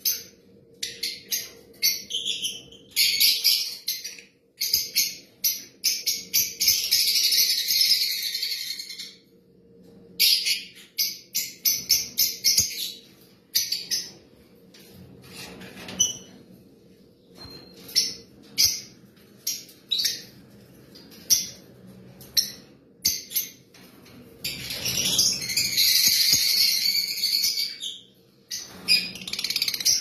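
Caged lovebirds chirping in rapid high-pitched runs, breaking twice into long stretches of dense, continuous chatter.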